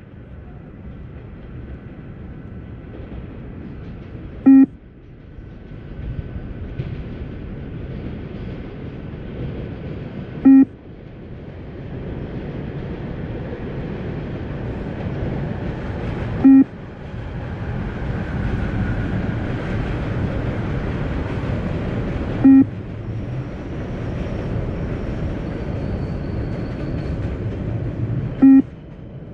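Beep test audio: a short electronic beep about every six seconds, five in all, each marking the end of a 20-metre shuttle at level 8. Between the beeps runs a steady rumbling noise that grows louder over the first half.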